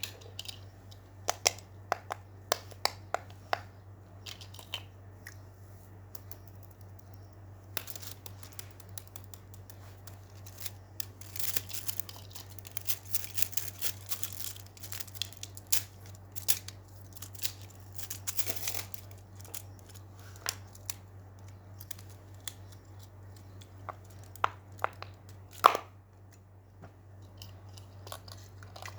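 Small objects handled close to the microphone in a small room. First comes a quick run of sharp clicks, then several seconds of rustling and crinkling, then one loud click near the end, all over a steady low hum.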